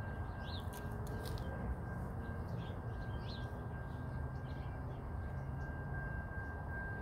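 Railroad crossing warning bell sounding one steady high tone while the gates are down, over a low rumble, with birds chirping.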